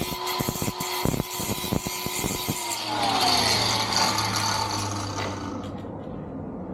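Power tool working metal, most likely trimming the flush bolt's rod: a run of sharp clicks, then a whine that falls in pitch. The noise stops about five and a half seconds in.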